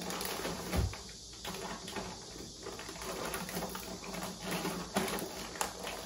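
Light clicks and taps of things being handled on a kitchen counter, with a soft thump about a second in, over a faint steady low hum.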